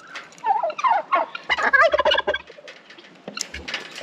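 Turkey gobbling: a few quick warbling calls through the first half, and another short one near the end.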